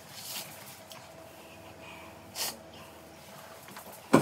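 Short, sharp hissing breaths through the nose or mouth, a faint one just after the start and a stronger one about halfway, from people suffering the burn of an extremely hot chili chip; a sudden loud vocal burst comes at the very end.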